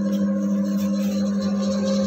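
The 150-watt electric motor of a belt-driven dough mixer running steadily, a smooth, even hum at one constant pitch.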